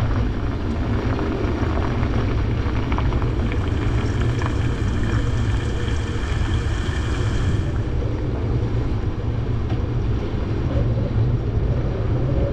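Storm wind gusting across a sailboat's deck and buffeting the microphone, a steady heavy rumble. Partway through, a high whistling tone joins in and then cuts off suddenly.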